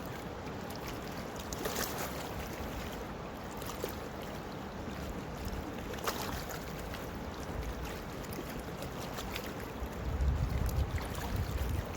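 Steady rushing of a small river's flowing water, with a few faint clicks and wind rumbling on the microphone about ten seconds in.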